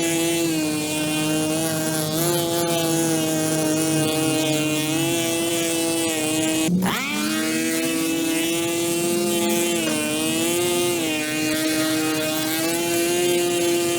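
A motor running with a steady high whine whose pitch shifts slightly now and then. About seven seconds in it drops sharply and spins back up to speed.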